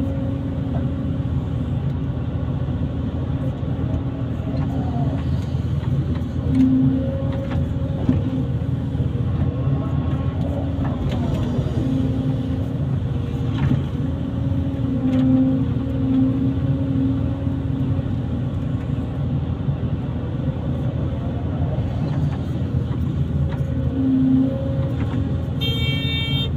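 Kobelco SK140 hydraulic excavator's diesel engine running steadily, with brief surges as it works under load. A short high-pitched tone sounds near the end.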